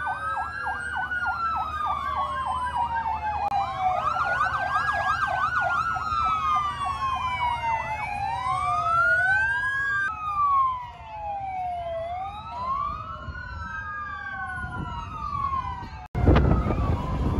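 Several emergency-vehicle sirens from passing fire engines and a police car, sounding together: slow rising and falling wails overlapping, with a rapid yelp for the first few seconds. Near the end the sirens cut off suddenly and wind rumbles on the microphone.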